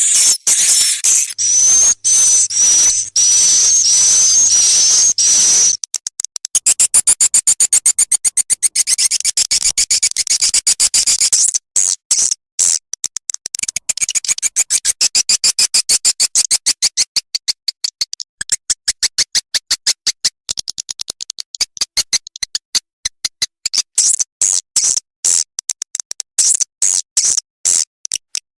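Edible-nest swiftlet lure recording, the kind played from tweeters in swiftlet houses to draw birds in to roost and nest. It opens with high, wavering twittering chirps, then runs into long trains of rapid dry clicks with shrill chirps over them.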